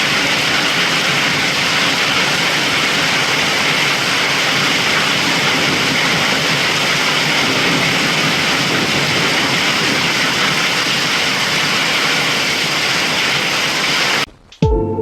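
Heavy storm rain pouring down, a loud steady hiss with no breaks. About a second before the end it cuts off abruptly and music begins.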